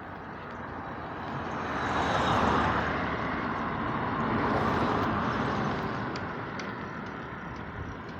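Road traffic: vehicles driving past, the tyre and engine noise swelling about two seconds in and fading away after about five seconds.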